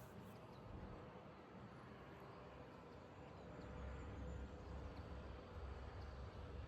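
Quiet outdoor ambience with faint, scattered bird chirps, and a low rumble that grows louder about halfway through.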